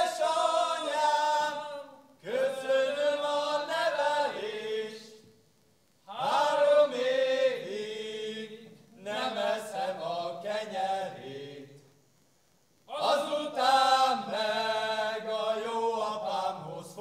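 A small group of men singing a Hungarian folk song unaccompanied, in unison, in long phrases with brief breaks between them; about five phrases are heard.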